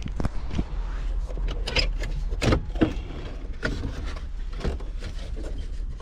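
Plastic dash trim and the climate control panel being pried and pulled from the centre console: a string of irregular sharp clicks and knocks, over a low steady hum.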